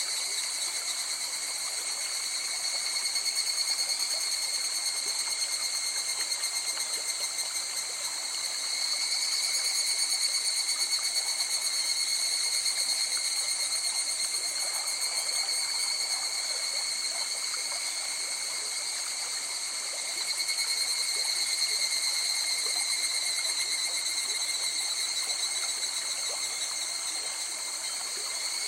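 Night insects trilling without a break in several high pitches, swelling louder and fading back every several seconds, over the soft rush of a flowing river.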